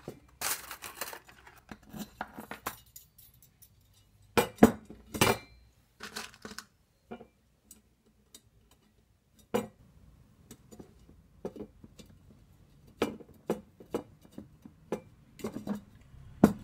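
Thin steel spokes clinking against each other and against the metal rim and hub of a 144-spoke lowrider bicycle wheel as spokes are threaded in and nipples fitted, making scattered sharp metallic clicks and taps. The loudest are a pair about four and a half seconds in.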